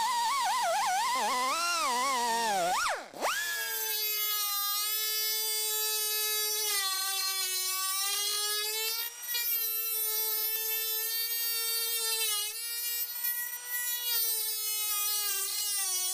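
Pneumatic pad grinder whining with a wavering pitch as it is pressed on and eased off the metal, then, after an abrupt change about three seconds in, a Dremel-type rotary tool with a cut-off wheel running at a steady high whine while cutting quarter-panel sheet steel, dipping slightly in pitch each time it bites.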